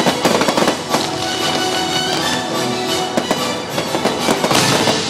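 Fireworks going off in quick succession, many sharp bangs and crackles over show music, with the noise swelling near the end.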